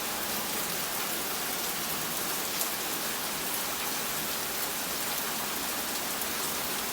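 Heavy rain falling steadily on surfaces, a dense even hiss with faint scattered drop ticks.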